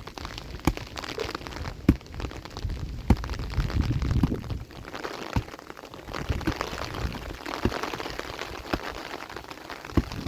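Rain falling and pattering on a hard surface, with sharp irregular drop ticks and a low rumbling gust partway through.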